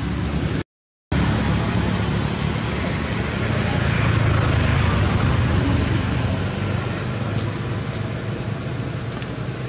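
Steady low rumbling outdoor background noise, with no distinct events. It cuts out to silence for about half a second just under a second in.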